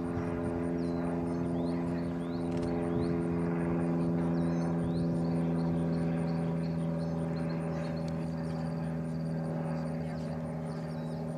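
A steady mechanical drone, an engine or motor running at constant speed, with small birds chirping now and then above it.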